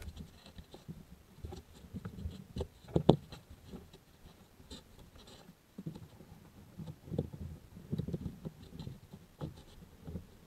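Gloved hands feeding a ribbed rubber drive belt over the engine's pulleys: irregular soft rubbing and scraping with a few light knocks.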